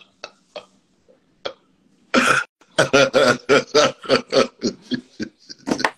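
A man laughing hard from the gut: a few faint breathy gasps, then about two seconds in a loud rough burst, followed by a run of loud, rapid 'ha' pulses, about three to four a second.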